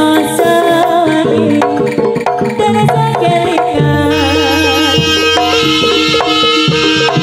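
Live East Javanese jaranan music from a gamelan-style ensemble: kendang hand drums keep a busy rhythm under struck metallophone notes and a wavering melodic line. A low bass comes in about halfway.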